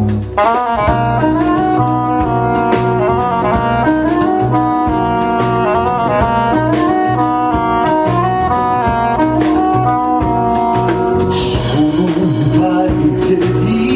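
Live band playing an instrumental opening, a saxophone carrying the melody over a steady low accompaniment and regular beats. A brighter hiss joins about eleven seconds in.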